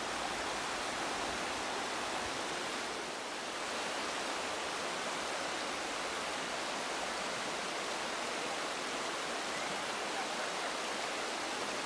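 River water rushing over rocks and small rapids: a steady, even rush.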